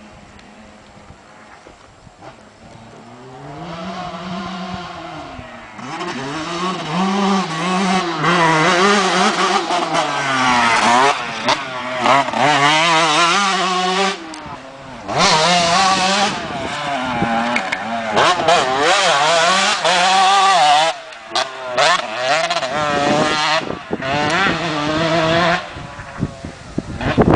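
Two-stroke motocross bike engine revving hard, its pitch climbing and falling again and again as the throttle is opened and shut through the gears. It is faint for the first few seconds, gets loud about six seconds in, and eases off briefly twice in the middle.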